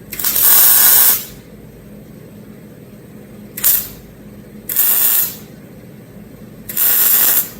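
MIG welder laying four tack welds on the steel sheet metal of a truck cab's rocker and cab post repair. Each tack is a burst of arc hiss: the first about a second long, the second very brief, the last two under a second each.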